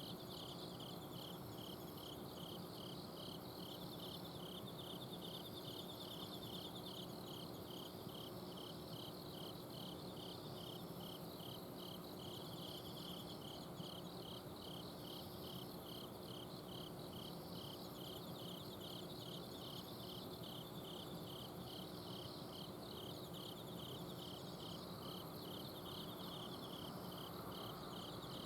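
Several autumn crickets singing at night: a steady, regular run of short chirps with fainter high trills behind it. An air conditioner's outdoor unit hums steadily underneath.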